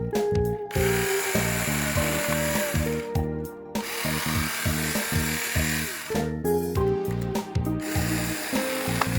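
Yard Force 24V cordless handheld chainsaw (LSC18-JP) cutting through branch wood in three spells of two to three seconds each, over background music.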